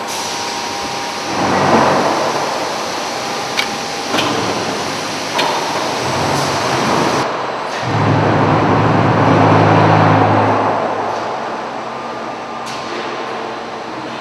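A pallet stretch-wrapping machine and chain conveyor in a concrete-block packaging line running: steady mechanical noise with a few sharp clicks. A low motor drone swells up about eight seconds in and fades a few seconds later.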